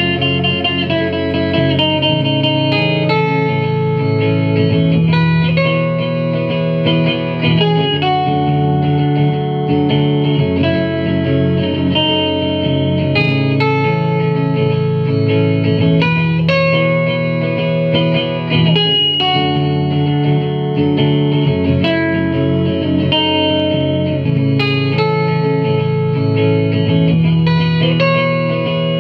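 Electric guitar played through effects: a melody of notes changing about every second, ringing over sustained low notes.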